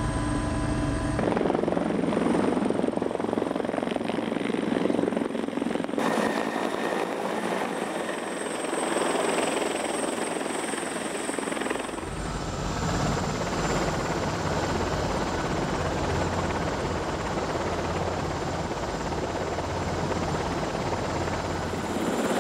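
Helicopter running, a steady dense rotor and engine noise as it sets down on a ship's helideck. Its character changes abruptly about a second in, at about six seconds and at about twelve seconds, with a deeper rumble in the last part.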